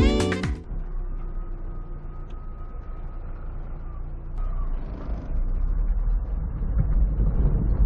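Electronic intro music ends about half a second in, giving way to a Fiat Fiorino van driving, its engine and tyre noise heard from inside the cabin as a steady rumble that gets louder from about five seconds in.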